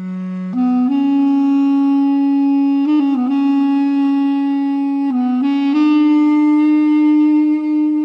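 Background music: a solo wind instrument playing a slow melody of long held notes, with short turns of pitch about three and five seconds in.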